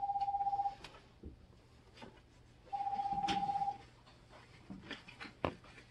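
Electronic buzzer in a train driver's cab sounding twice, each a steady buzzy tone about a second long, the second about three seconds after the first. Light clicks and knocks from the cab fall between and after the buzzes.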